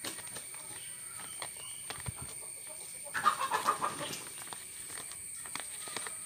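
A chicken clucking in a short run of calls about three seconds in, over faint rustling and soft clicks of newspaper being folded.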